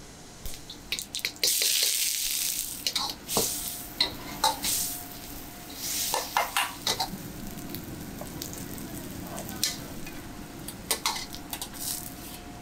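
Sliced onions and butter sizzling in a hot wok, with two loud bursts of hissing, about a second and a half in and again around six seconds in, as food hits the hot fat. A steel ladle clinks and scrapes against the wok as it is stirred.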